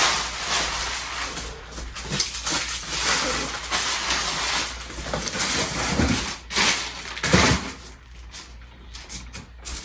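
Roomba j7+ robot vacuum running, its motor and brushes giving an uneven whirring hiss with a thin high whine, with a couple of dull knocks past the middle.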